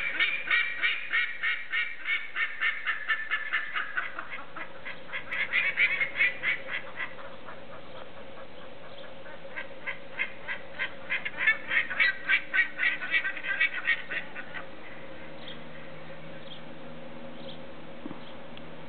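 Black-faced ibis calling in fast runs of loud notes, about five a second, in three bouts: the longest at the start, a short one around six seconds in, and another from about ten to fourteen seconds in. A faint steady hum runs underneath.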